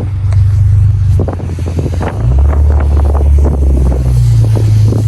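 Supercharged Nissan Frontier's V6 engine running under way, its low drone dropping in pitch about two seconds in and rising again about four seconds in, with wind buffeting the microphone.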